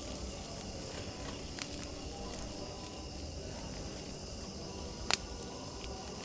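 Night insects, crickets among them, chirping steadily, with one sharp snap about five seconds in.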